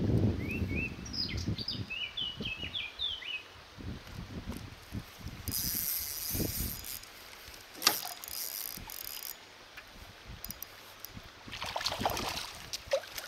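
A hooked fish being played from a kayak: knocks and bumps of handling in the boat at the start, a small bird chirping a quick series of notes for the first few seconds, a sharp click near the middle, and the fish splashing at the surface about twelve seconds in.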